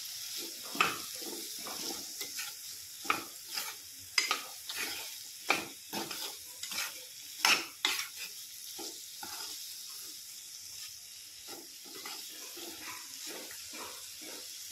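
Steel spatula scraping and knocking against a kadhai as chopped spiny gourd (kantola) is stirred with spices and peanut powder, over a steady sizzle of frying in oil. The scrapes come thick and fast for about eight seconds, then thin out.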